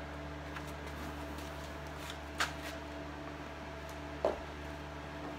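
Vinyl roof covering being handled and pressed down by hand: faint rustling, with two brief crinkling snaps about two and a half and four seconds in, over a steady low hum.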